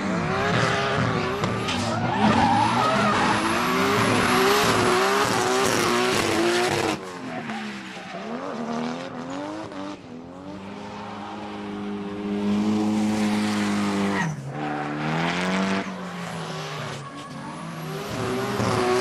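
Drift cars sliding sideways under full wheelspin: engines revving hard with the pitch wavering as the throttle is worked, over the steady screech of spinning tyres. About seven seconds in the sound drops and cuts to a single car whose engine climbs and holds high revs, dips briefly and climbs again.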